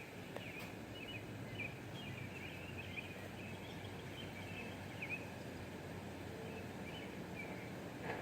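Birds chirping in short, high calls, scattered throughout, over a steady hiss of outdoor background noise through an open window.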